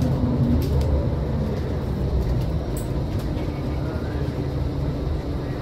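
Inside a Scania L94UA articulated bus on the move: steady low engine and road rumble, with a few short rattles and clicks from the cabin.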